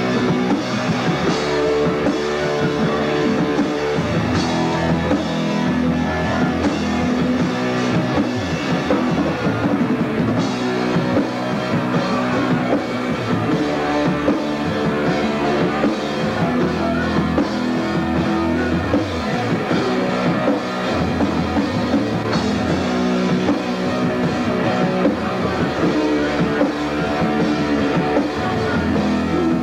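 Punk rock band playing loudly and steadily in rehearsal, with drums and electric guitar.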